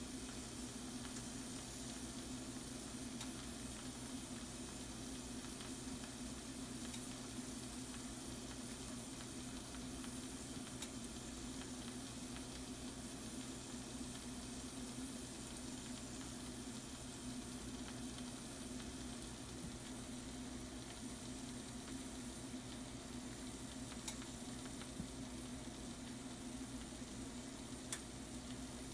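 Shrimp and sliced mushrooms sizzling and simmering in their juices in a skillet, a steady sizzle with a few faint pops near the end, over a steady low hum.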